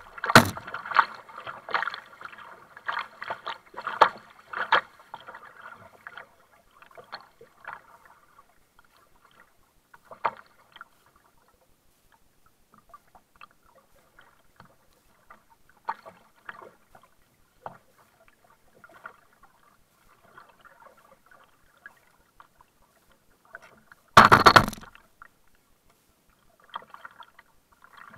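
Kayak paddle blades dipping and splashing in the sea and water slapping against the hull, busy for the first few seconds and then sparse. One loud burst of splashing comes near the end.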